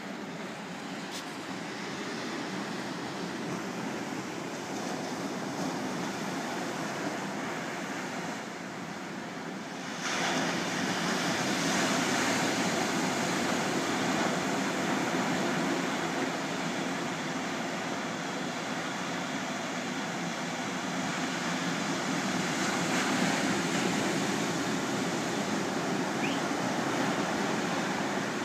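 Heavy ocean surf breaking and washing up a beach: a steady rushing roar of waves that grows suddenly louder about ten seconds in and stays loud.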